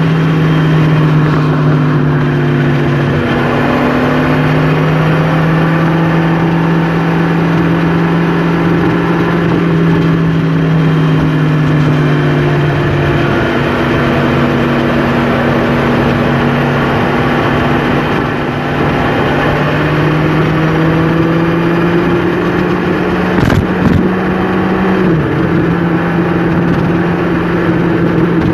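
Vehicle engine running steadily at highway speed, heard from inside the cab over road noise, its pitch dipping and recovering a few times. A couple of short knocks near the end.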